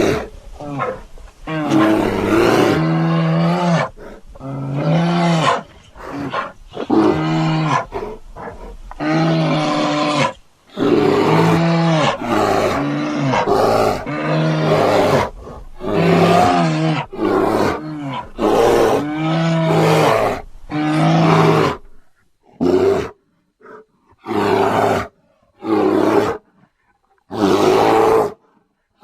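Animated grizzly bear character's roar and growl sound effects, played one after another. Each call lasts a second or two and is pitched, with a wavering tone. Near the end the calls are shorter and separated by brief silences.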